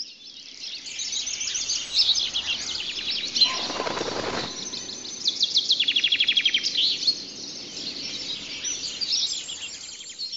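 Recorded canary song used as a wake-up alarm sound: several canaries singing at once in dense, overlapping high chirps and trills, with a rapid trill of quickly repeated notes about six seconds in. A brief rustling noise sounds under the song about three and a half seconds in.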